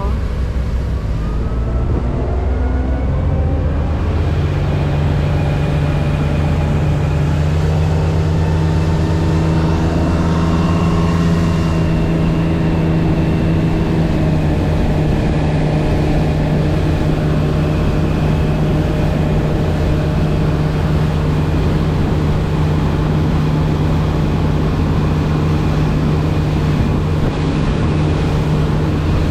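Motorboat engine speeding up over the first few seconds, then running steadily at cruising speed with an even rush of noise underneath.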